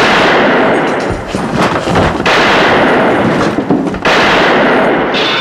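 A loud, dense barrage of film gunfire and blasts. Three big bursts come about two seconds apart, each trailing into a continuous clatter of firing.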